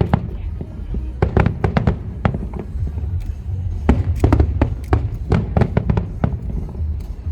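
Aerial fireworks going off in an uneven, rapid series of bangs and crackling bursts over a continuous low rumble.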